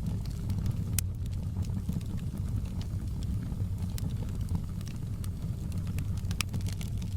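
Wood fire burning in a fireplace: a steady low rumble of the flames with scattered sharp crackles and pops, the loudest about a second in.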